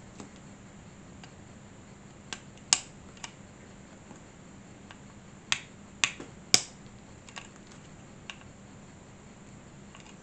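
Scattered sharp clicks and taps of small model-kit parts as the clutch assembly is pressed onto the mounting posts of a scale motorcycle engine model. About nine irregular clicks, the loudest a few around three and six seconds in.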